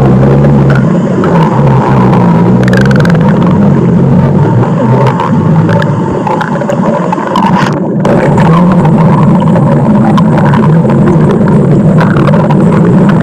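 Stomach growling: a loud, deep, continuous rumble that churns irregularly without a break, dipping slightly around the middle.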